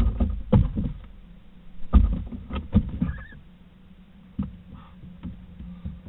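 Barn owls landing in and moving about a roost cavity: a series of knocks and scuffles of feet and talons on the hollow's wall and debris-strewn floor, loudest at the start and about two seconds in, with smaller knocks later.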